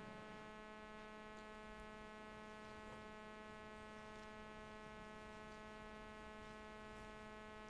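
Faint, steady electrical mains hum with a buzzy edge, unchanging, with nothing else heard.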